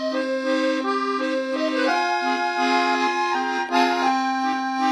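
Background music: a short tune of changing notes over one held low note.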